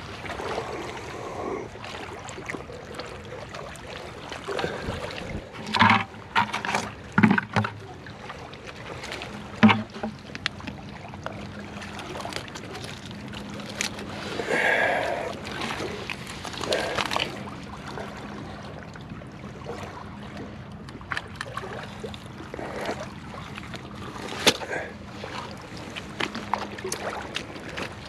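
Gloved hands digging through wet mud and oyster-shell clumps: scattered sharp clicks and knocks of shell and rock against a background of squelching mud and trickling water. A faint steady hum sits under the middle of it.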